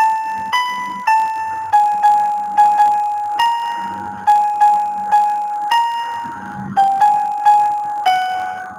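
Background music: a slow keyboard melody of single notes, each struck and left to fade, at about two notes a second.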